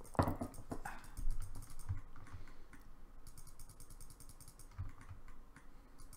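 Clicking and tapping of a computer mouse and keyboard: a short louder knock just after the start, another about a second in, and runs of rapid faint ticks.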